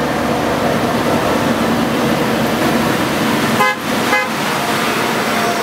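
Park tram pulling a train of open passenger cars, driving past with a steady running rumble and hum. Two short pitched toots sound about half a second apart, about three and a half seconds in.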